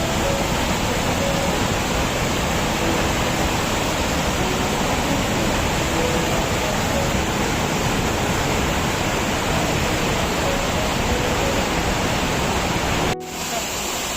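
A waterfall's steady rushing roar of falling water. It stops abruptly a little before the end, giving way to a quieter rush of water.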